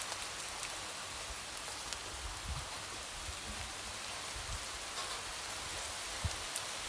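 Light rain falling in a steady hiss, with scattered individual drops tapping sharply against a window.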